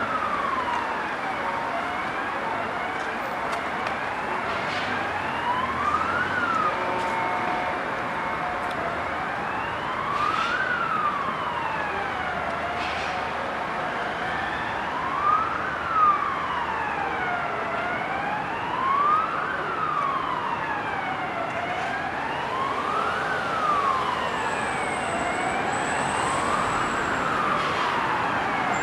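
Emergency vehicle siren wailing, its pitch rising and falling slowly about every four seconds, over the steady road noise of traffic.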